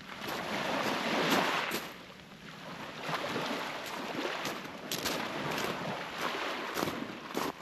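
Sea waves washing on the shore, swelling about a second in and again from about three seconds, with a string of short sharp ticks over the wash in the second half.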